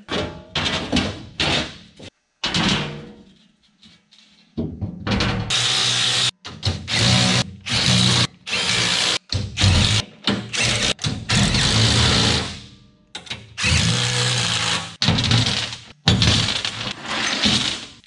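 Cordless power driver running bolts in to fasten steel diamond-plate cover panels back onto the machine, in a run of short bursts that stop and start every second or so, mostly from about four and a half seconds in.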